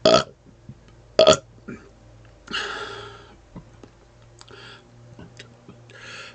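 A man burping deliberately: two short, loud belches about a second apart, followed by a longer airy hiss and a couple of fainter ones.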